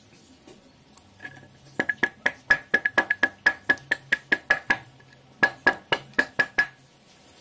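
A long knife blade being honed with quick back-and-forth strokes. Each stroke gives a ringing metallic clink, about four or five a second, in two runs with a short pause between them.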